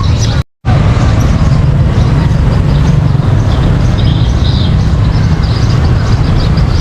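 Loud, steady low rumble of road traffic, broken by a brief dropout about half a second in.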